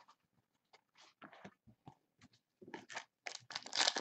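Trading-card pack wrapper crinkling as it is handled: faint scattered crackles, growing into denser crinkling over the last second or so.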